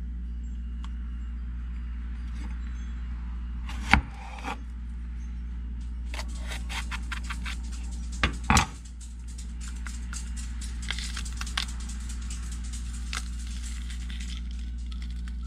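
A kitchen knife knocking sharply on a wooden cutting board, once about four seconds in and again about eight seconds in, with many small clicks and rubbing as green hot peppers are split open and their seeds pulled out. A steady low hum sits underneath.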